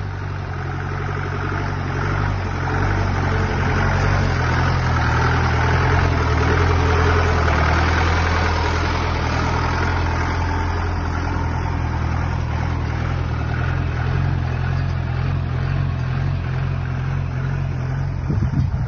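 Engine of a 4x4 vehicle running steadily with a low drone, growing louder over the first few seconds and then holding even.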